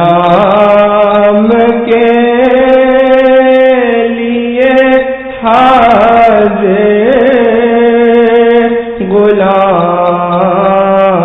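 Naat sung in Urdu by a solo voice: long held, wavering notes in a slow melody, with short breaks between phrases about five seconds in and again near nine seconds.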